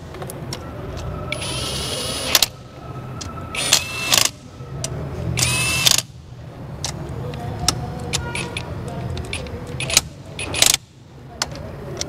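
Hand tools working on a car engine: clicks, clinks and short scraping bursts, over a steady low hum.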